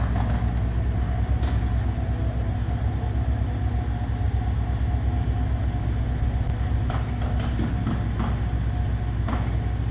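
A vehicle engine runs steadily close by, a continuous low drone with a faint steady whine above it. A few light clicks come near the end.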